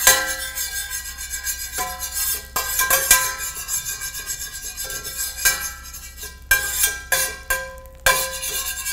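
Metal spatula scraping and clinking across the bottom of a hot Stargazer cast iron skillet, spreading melted butter into an even coating. Background music with held notes plays underneath.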